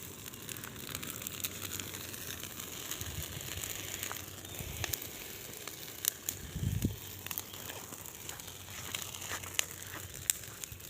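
Large bonfire crackling steadily, with frequent sharp snaps and pops. A few low rumbles come through, the strongest about seven seconds in.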